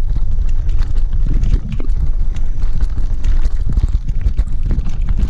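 Wind buffeting the microphone of a camera on a mountain bike, over the rattle and knocking of the bike as it rides across a rough, cracked dirt road.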